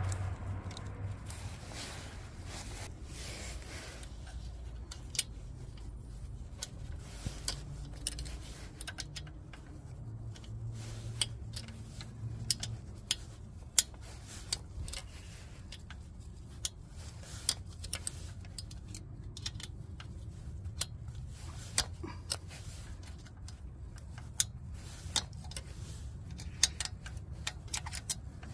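Light, irregular metallic clicks and clinks from a small hand wrench turning the oil pump mounting bolts on a Harley-Davidson Sportster engine, over a low steady rumble.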